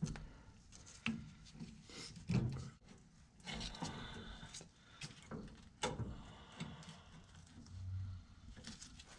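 Gloved hands working metal steering-linkage parts around a Jeep's steering bell crank: scattered light knocks and clicks, with a stretch of scraping rub about three and a half seconds in.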